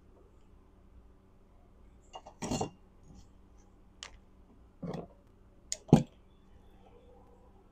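Small metal parts and hand tools being picked up and set down on a workbench: a few short clicks and clinks, one longer rattle early on, with the loudest sharp click about six seconds in.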